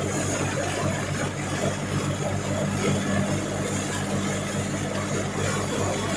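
Belt-driven wheat thresher running steadily while wheat is fed into it. Its engine drive gives an even low hum, over a continuous rush from the spinning drum and the straw.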